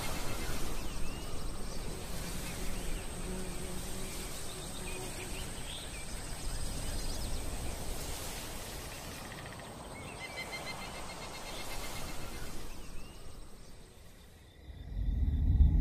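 Night-time woodland ambience: insects trilling steadily with a few bird chirps over a soft hiss. Near the end it drops away and a deep, loud rumble swells in.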